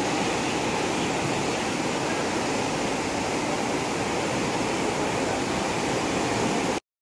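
Steady rushing of the flooded Ganga river, a wide spate of turbulent brown floodwater surging past. It cuts off suddenly just before the end.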